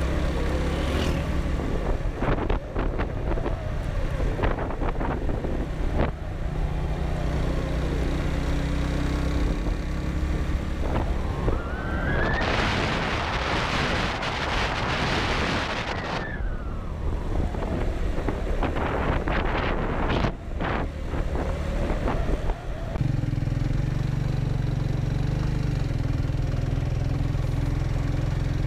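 Motorcycle engine running steadily while riding, with scattered knocks from the road. About halfway through, a loud rushing noise swells and fades over about four seconds, and near the end the engine hum steps up in pitch.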